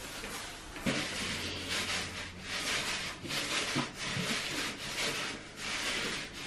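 Paint roller loaded with wet paint rolled back and forth over a wall, a rhythmic sticky hiss in repeated strokes of about a second each, starting about a second in.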